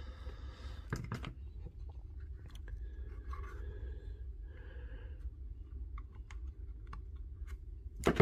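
Small clicks and scratchy handling noises as fingers work small plastic and metal parts inside an opened laser level's housing, over a low steady hum. A louder pair of clicks comes about a second in, and a sharp click near the end.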